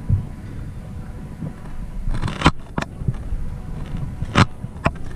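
Rumbling handling noise and thumping footsteps picked up by a camera mounted on an airsoft rifle carried while walking, with a few sharp clacks, the loudest about two and a half and four and a half seconds in.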